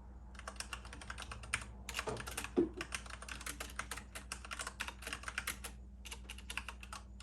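Fast typing on an iKBC CD108 V2 keyboard with Cherry MX Brown switches and PBT doubleshot keycaps: a rapid run of key clacks broken by a few short pauses. One duller, louder knock comes about two and a half seconds in.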